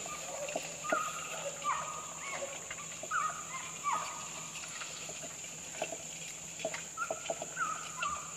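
Birds calling again and again in short hooked notes, over a steady high insect drone, with scattered light clicks and knocks.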